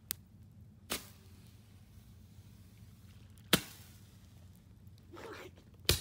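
Fireworks going off: a few sharp bangs, the loudest a little past halfway through, with a short hiss just before a last bang near the end.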